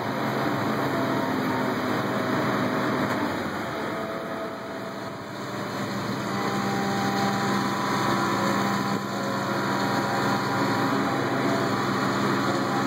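Diesel engine of a Hitachi wheeled excavator running steadily while it works at a building under demolition, over a rushing noise. The engine tone grows clearer about halfway through.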